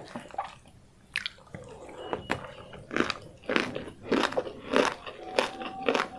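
Close-miked eating sounds of crispy fried chicken: a few sharp crackles at first, then steady crunchy, wet chewing, a bite almost twice a second.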